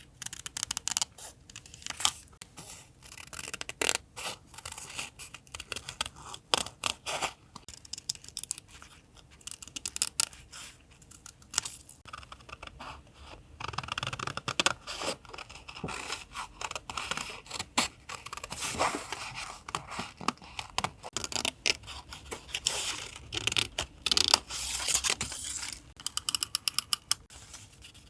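Close-up paper crafting for a collage journal: paper rustling and scraping, torn and cut with scissors, as a string of irregular sharp, crisp strokes. Near the end comes a quick run of evenly spaced clicks.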